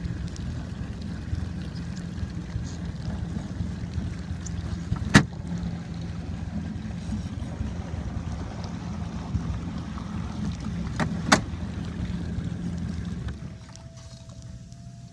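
Jet ski engine running steadily at low speed, a low hum, with two sharp knocks about five and eleven seconds in. The hum drops away near the end.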